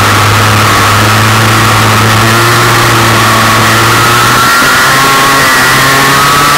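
Racing kart engine running at speed, heard up close with heavy wind rush on the microphone. Its note holds steady, then shifts pitch from about four and a half seconds in and rises again near the end as the kart comes through a corner.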